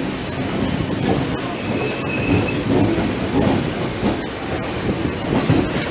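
Local passenger train running along the track, its wheels clicking over the rail joints, with a faint brief high wheel squeal about two seconds in.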